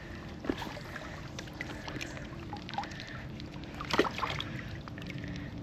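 River water splashing and sloshing in the shallows, with small irregular splashes and one louder splash about four seconds in.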